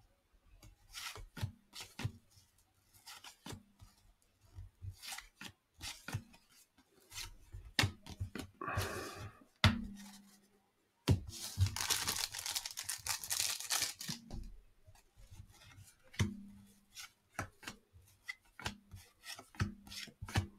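Trading cards being handled, with short snaps and taps as they are flicked through and set down. About eleven seconds in comes a few seconds of crinkling and tearing as a cellophane card-pack wrapper is ripped open.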